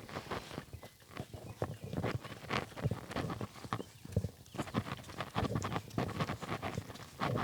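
Horse's hooves clopping in irregular, uneven steps as the mare shifts and moves her feet.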